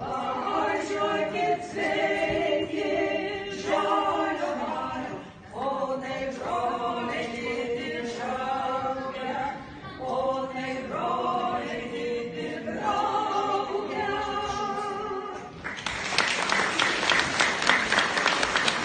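Folk ensemble singing a cappella, the song ending about three seconds before the end, followed at once by audience applause.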